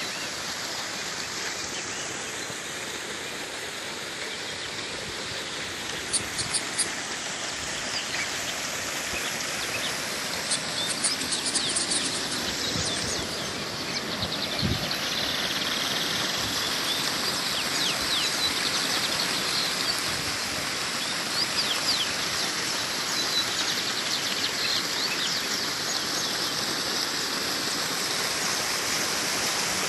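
Small waterfall cascading over rock with a steady rush of water, and birds chirping above it in short bursts, first about six seconds in, again around eleven to thirteen seconds, and scattered through the second half.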